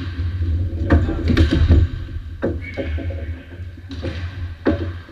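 Hockey sticks and ball knocking on a gym floor during an indoor hockey game: a handful of sharp clacks, about a second in, near the middle and again near the end, echoing in the gymnasium over a steady low hum.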